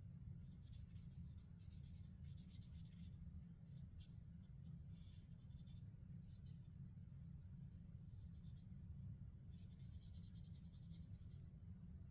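Faint scrubbing of an oiled cotton swab against a Glock pistol's slide, in several short bursts, over a steady low hum.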